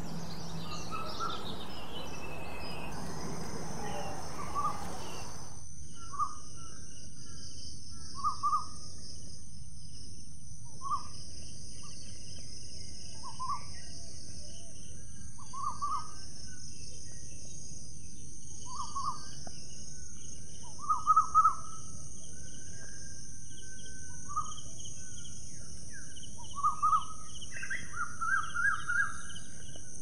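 Birds calling outdoors: short chirps every couple of seconds over a steady high-pitched hiss, with louder clusters of calls about two-thirds of the way through and again near the end.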